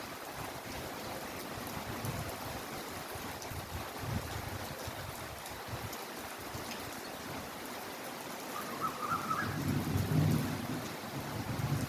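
Heavy rain falling steadily, a dense hiss of drops with scattered sharper ticks, and a low rumble swelling up about ten seconds in.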